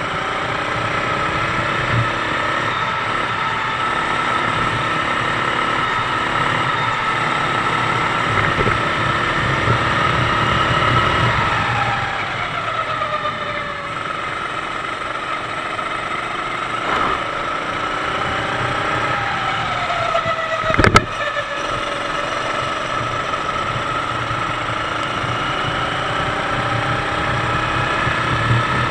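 Sodi rental kart's 390 cc four-stroke engine running under way, its pitch dropping twice as it slows for corners and climbing again as it pulls out. A single sharp knock about 21 seconds in.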